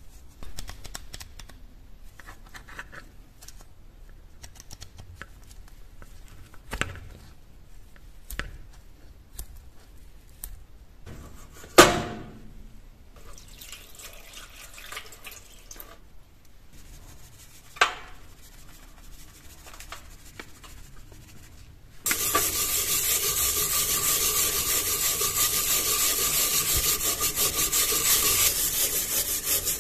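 A rusty folding pocket knife handled with small scrapes and clicks, with one sharp metallic clank near the middle. Water poured over it in a steel tray. Then, for the last several seconds, a brush scrubbing the wet, rusty knife steadily and loudly.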